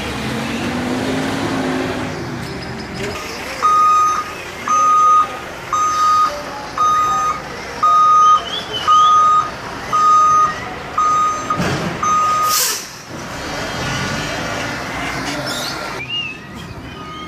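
Tractor-trailer backing up: its diesel engine runs under nine reversing beeps, about one a second, which stop near the end of the sequence and are followed by one short, sharp hiss of air from the air brakes.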